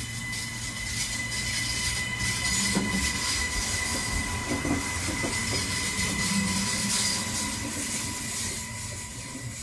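Queensland Rail New Generation Rollingstock electric multiple unit running past along the platform, its wheels on the rails and a steady high-pitched whine. It grows louder over the first few seconds, then fades as the last car goes by.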